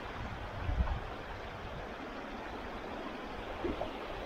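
Small stream flowing, a steady rush of water, with a brief low thud about a second in.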